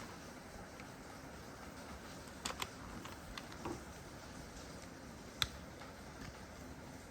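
A few sharp light clicks and taps, one pair close together and a louder single one later, over faint steady background noise.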